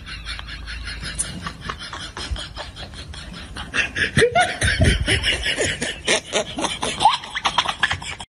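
Several people laughing and snickering in quick bursts, getting louder about four seconds in.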